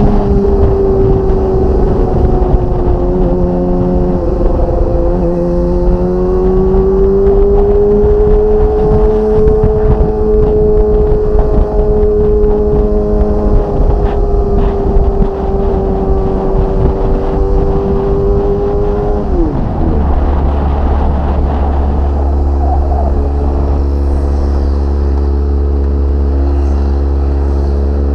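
Kawasaki ZX-25R's 250 cc inline-four with a Magna aftermarket exhaust running at high revs under way, with a brief dip in pitch about four seconds in like a gear change. About twenty seconds in the revs drop sharply and the engine settles to a low, steady idle.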